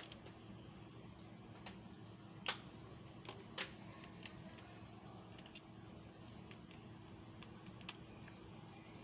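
Scattered light clicks and taps of small tools and laptop parts being handled on a repair bench, with two sharper clicks about two and a half seconds in and a second later, over a steady faint hum.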